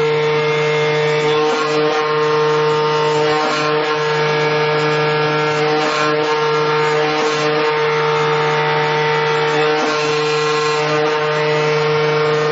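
AOKE CNC flatbed cutting machine running while its tool head cuts a looped vinyl car floor mat: a steady motor hum at a constant pitch, with a hiss of noise over it.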